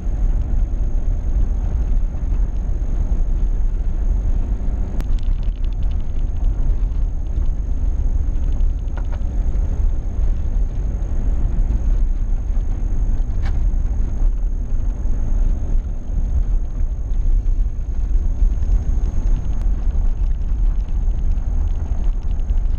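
Car engine and tyre noise heard from inside the cabin while driving steadily: a continuous low rumble with a few faint clicks.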